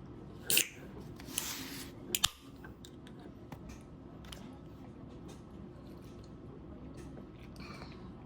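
Table sounds of a fried-chicken meal: a sharp click, a short crisp hiss and a pair of sharp clicks in the first two seconds or so, then faint light clicks and chewing.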